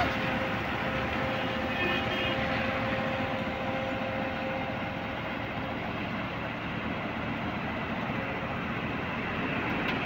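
A heavy diesel engine running steadily, with a faint high tone held over it for about the first half.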